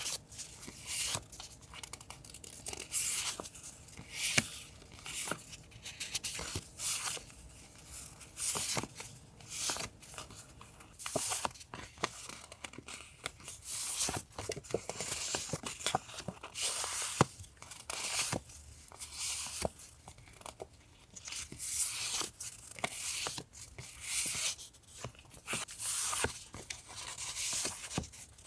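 Paper and packaging handled close to the microphone: a run of short rustles and tearing swishes, a few every second, with small taps and clicks between them.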